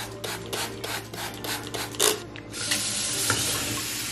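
Trigger spray bottle squeezed rapidly into a bowl, about four sprays a second, for the first two seconds. Then a kitchen faucet's pull-down sprayer starts running water steadily into the bowl.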